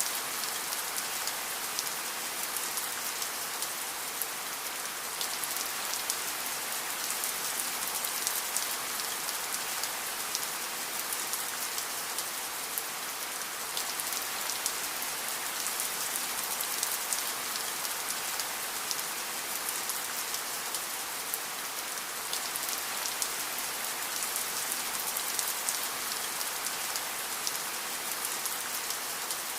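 Steady rain falling, a continuous hiss thick with fine drop ticks, with no thunder.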